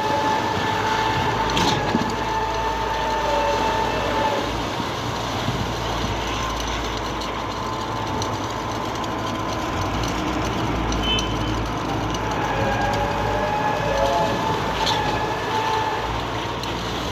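Cifa K42L truck-mounted concrete pump running during a pour: a steady mechanical din with a high whine that wavers, fades and returns, and a sharp knock about two seconds in and again near the end.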